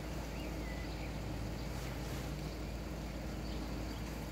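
Steady low outdoor rumble, with a short high chirp about half a second in.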